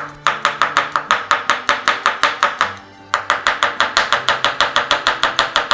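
Chef's knife rapidly chopping garlic cloves on a cutting board, quick even strikes about seven or eight a second. The chopping comes in two runs, with a brief pause a little under three seconds in.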